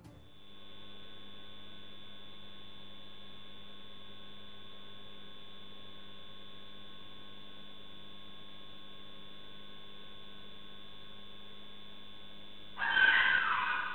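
Steady electrical hum with a few fixed tones from a security camera's audio. Near the end a sudden loud, irregular noise breaks in.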